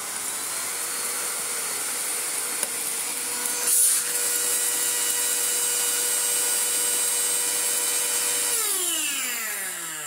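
Miele C3 canister vacuum cleaner motor running with a steady whine and a strange noise, with a brief louder burst of noise about four seconds in; near the end it is switched off and its pitch falls as it spins down. The owner judges the motor no good, putting it down to worn bearings that let the fan rub on its case.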